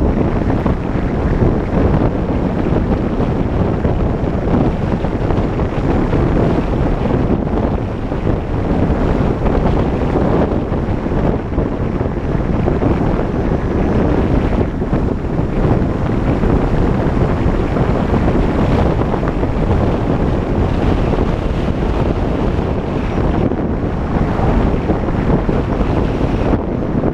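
Wind buffeting the microphone of a camera on a moving vehicle: a loud, steady low rushing noise without a break.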